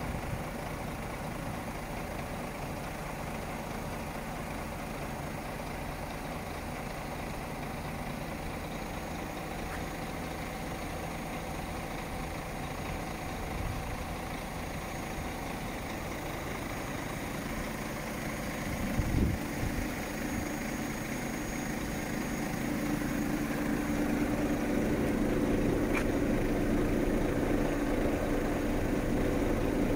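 Iveco Stralis truck's diesel engine idling steadily. About two-thirds of the way through there is a single thump, and after it a steady hum comes in and grows louder toward the end.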